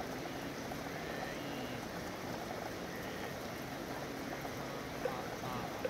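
Steady city rain falling, an even hiss of drops, with a few sharper drips near the end.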